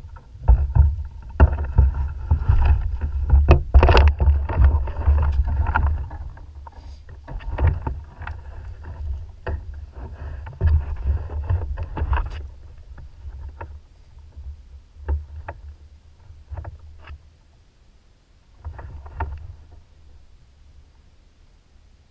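Knocks, clatter and low thumps against a plastic sit-on-top kayak as the person in it shifts and reaches toward the bow. There is a dense run of knocks over a heavy rumble in the first six seconds, then scattered single knocks.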